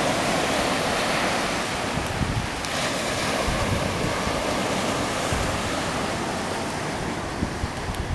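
Ocean surf breaking and washing up a sandy beach: a steady rushing wash, loudest in the first couple of seconds. Wind buffets the microphone, adding an uneven low rumble.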